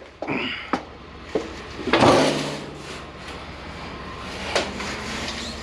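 Scrap sheet tin being handled and moved: a few knocks, then a louder scraping slide about two seconds in.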